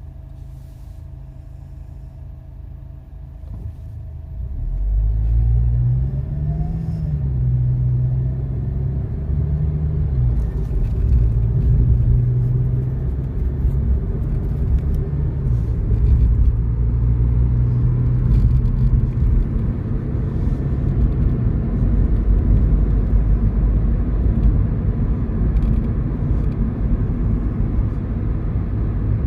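Suzuki Swift Sport heard from inside the cabin, idling, then pulling away about four seconds in, with the engine note climbing and dropping through the gears before settling into steady driving with road rumble. Over it comes a light clattering 'karakara' rattle from around the dashboard, which the owner says is neither engine knock nor a buzzing trim rattle and cannot place.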